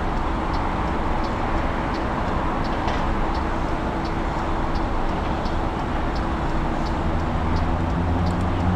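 Wind and traffic noise on the move, heard from an electric motorbike, with a light tick repeating about twice a second. A combustion engine's low drone comes in and grows louder over the last couple of seconds.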